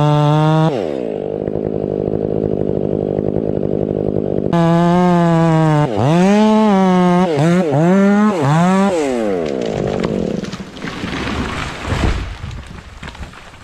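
Two-stroke chainsaw running at full throttle, dropping off under a second in, then revved up and down several times before being let back down to idle. A sharp knock comes near the end.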